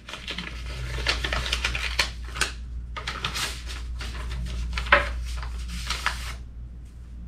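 Paper and envelope rustling and crinkling as a piece of mail is opened and its contents handled, with a few sharp clicks, over a steady low hum.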